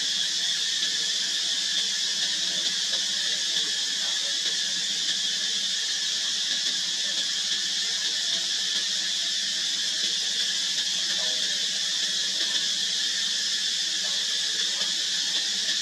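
Steady, high-pitched drone of an insect chorus, unbroken and even in level throughout.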